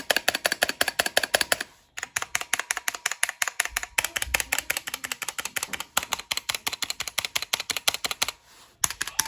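Rapid keystrokes on a Drop ALT mechanical keyboard, roughly ten clacks a second, pausing briefly twice. They include the spacebar on its stock plate-mount stabilizers, which give a little bit of pinging noise.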